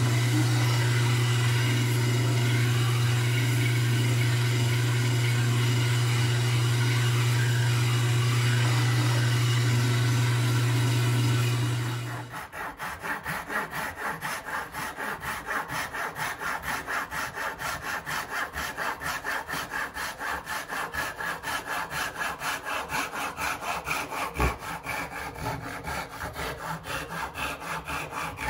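A wood lathe runs with a steady motor hum while a wooden block is pressed against the spinning stock. About twelve seconds in, this cuts to a handsaw cutting through wood clamped in a bench vise, in fast, even back-and-forth strokes.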